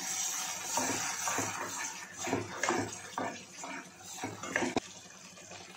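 A black slotted spatula scraping and stirring in a pan, about two strokes a second, as curd is mixed into a frying masala gravy, over a steady sizzle. The strokes get quieter near the end.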